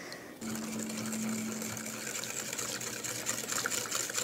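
Wire balloon whisk beating yogurt into melted butter and sugar in a glass bowl: a fast, even clatter of the wires against the glass, starting about half a second in.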